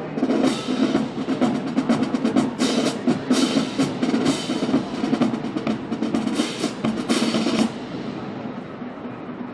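Marching band percussion section playing a drum feature: rapid snare-drum strokes and rolls over drums, with several bright crashes. It drops off sharply about eight seconds in.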